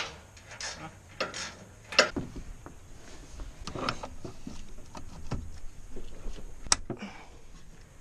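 Scattered metallic clicks and knocks of tractor three-point hitch parts being handled, the sharpest about two seconds in and again near seven seconds in.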